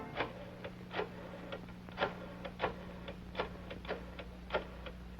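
Clock ticking, an uneven train of louder and softer ticks, over a faint steady hum.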